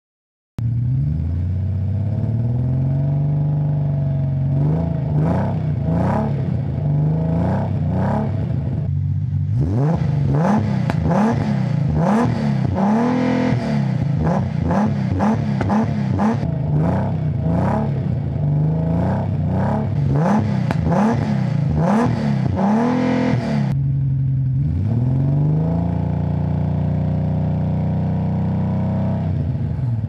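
Nissan 300ZX's 3.0-litre V6 heard at its twin exhaust tips, idling and blipped to rev about once a second for much of the time, then settling back to a steady idle near the end. This is the engine running properly, without a misfire.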